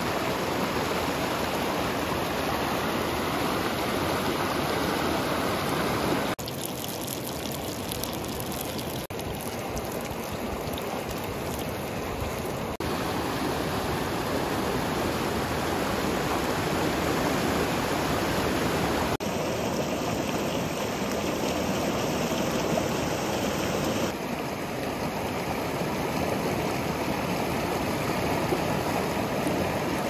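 Shallow mountain river rushing over rocks and boulders: a steady rush of water that shifts a little in level and tone a few times.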